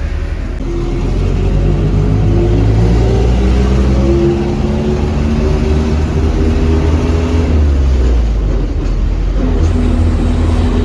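Mitsubishi front-engined bus's diesel engine heard from inside the cabin, revving up with its pitch rising over several seconds as the bus accelerates. Near the end the pitch drops back and the engine runs steadily again.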